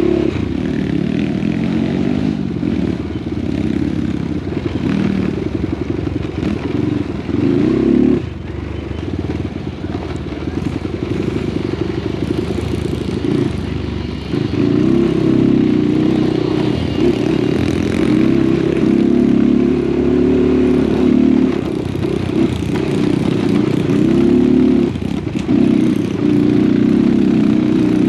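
Small motorcycle engine running under load on a rough dirt trail, its revs rising and falling with the throttle. The engine eases off briefly about eight seconds in and again about fourteen seconds in.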